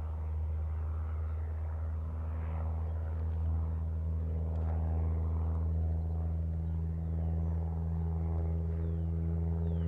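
Mooney M20 single-engine propeller plane flying overhead: a steady engine and propeller drone with a pitched hum that grows a little louder and clearer through the second half.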